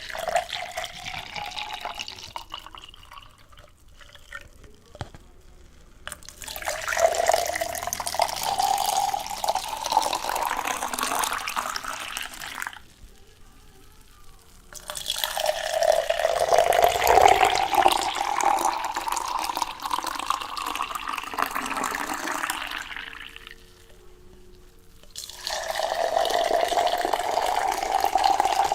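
Water poured in three long streams, each lasting several seconds, the pouring tone creeping slightly higher as each goes on. Quieter trickling and drips come before the first pour and in the short gaps between pours.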